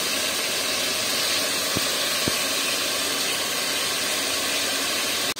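Chicken pieces and garlic sizzling steadily in hot oil in a nonstick pot, a constant even hiss that cuts off abruptly near the end.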